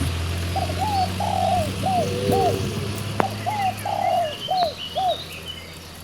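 A dove cooing, a phrase of short arched notes given twice, with faint chirps of small birds and a steady low hum underneath.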